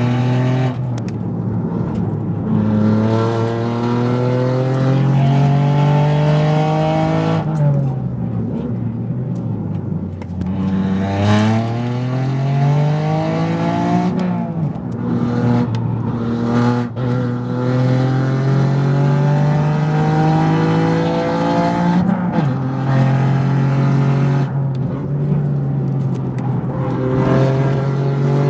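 Toyota GR Yaris's turbocharged three-cylinder engine under hard acceleration in a hillclimb run. Its pitch climbs through each gear and drops at the gear changes. Once, for a couple of seconds, the pitch falls as the car slows and then climbs again.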